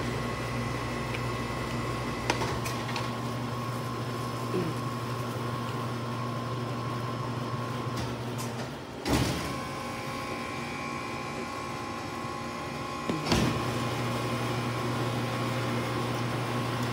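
Steady mechanical hum of a running machine, with a few short knocks and handling noises of food containers, the loudest about nine and thirteen seconds in.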